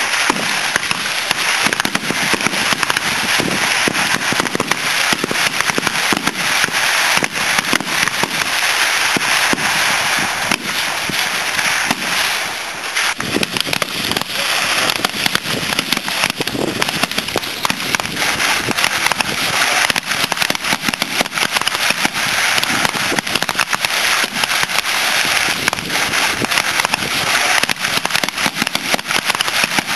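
Rapid, overlapping rifle fire from a long line of vintage military sniper rifles firing at once, a continuous crackle of shots. It thins briefly about twelve seconds in, then picks up again.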